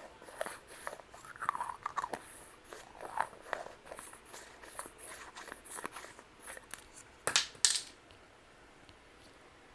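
ASMR mouth sounds close to the microphone: a quick run of wet clicks and smacks. They end with two louder sharp crackles about seven seconds in.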